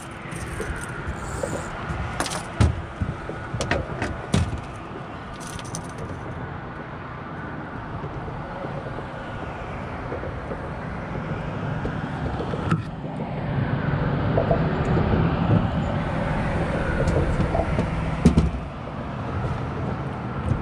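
Road traffic crossing a highway bridge, swelling as a vehicle passes in the second half. A few sharp clicks and knocks sound in the first few seconds.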